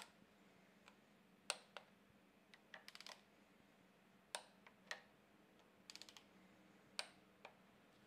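Hand ratchet turning a timing-chain sprocket bolt: quiet single clicks, with two short runs of rapid ratchet clicks, one about three seconds in and one about six seconds in.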